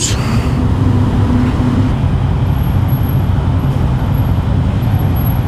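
Motorcycle engines running at low speed inside a ferry's enclosed steel vehicle deck, a loud, steady low rumble.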